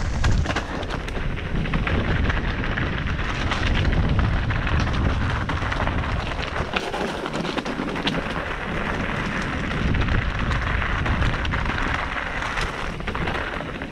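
Mountain bike riding fast down a loose, rocky trail: tyres crunching over gravel and stones, with many small knocks and clicks from the bike rattling. A heavy low rumble of wind on the microphone runs under it and eases about halfway through.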